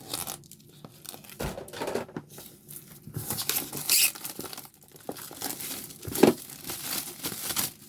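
Packaging crinkling and tearing as a keyboard box is opened by hand, with irregular rustling and a couple of sharper knocks.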